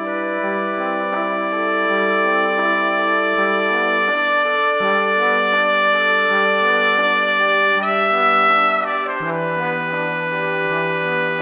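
Background music of slow, sustained chords that change every few seconds, with a higher held note swelling near the end.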